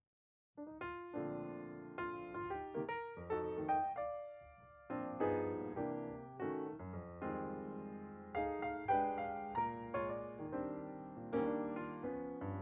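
Background piano music: a gentle melody with chords, the notes struck and fading, starting about half a second in.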